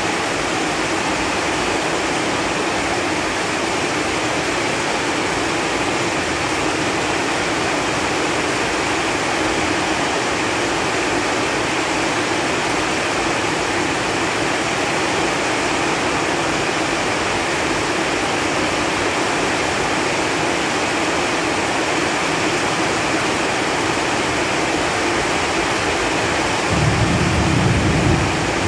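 Steady rain falling on leaves, an even hiss of drops. A louder low rumble comes in near the end.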